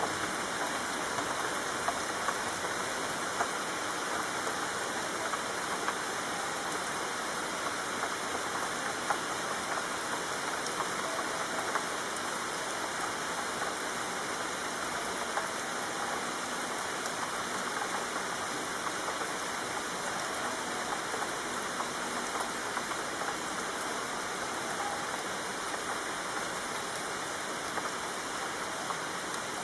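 Steady rain falling: an even hiss with scattered louder drops.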